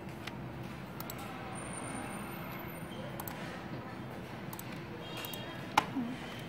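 Computer mouse clicking now and then over a steady room hum, with one sharp, louder click near the end; faint voices in the background.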